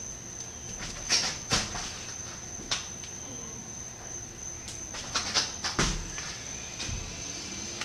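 Thuds and scuffs of hands and feet hitting a thin mat during one-handed dive cartwheels, a couple about a second in and a cluster around five to six seconds in, over a steady high-pitched whine.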